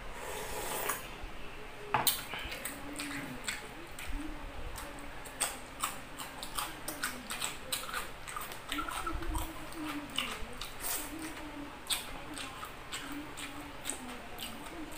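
Close-miked eating: a slurp of chicken tinola broth from a bowl near the start, then steady wet chewing and lip smacking with many short clicks.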